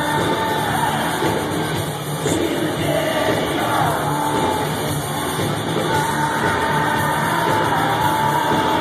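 Live heavy metal band playing loudly, with a singer's vocals over the guitars and drums, recorded from within the audience.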